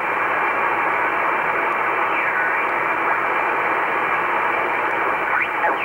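Icom IC-R8500 communications receiver in lower-sideband mode giving steady shortwave band hiss through its narrow filter as the dial is tuned up through the 75-metre band. Twice a faint whistle slides in pitch as the tuning passes over a signal.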